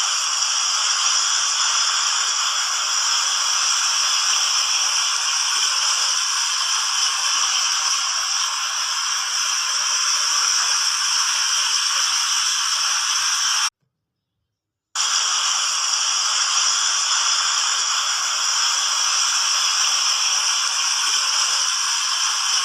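Water fountain spraying and splashing: a steady, even hiss of falling water, broken by about a second of silence two-thirds of the way in.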